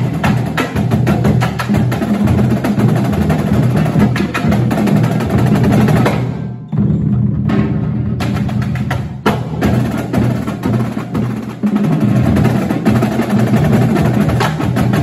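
A marching drumline plays a fast, loud cadence. The line is Pearl snare drums, a set of tenor drums and a line of pitched bass drums. The dense playing thins out for a moment about six seconds in, with only a few scattered hits, before the full line comes back in.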